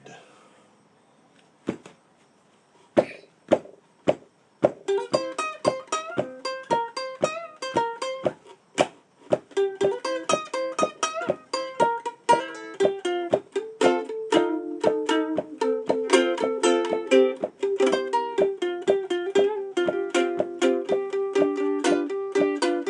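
Acoustic plucked string instrument playing blues: a few separate plucked notes a second or so apart, then from about five seconds in a continuous run of quick picked notes.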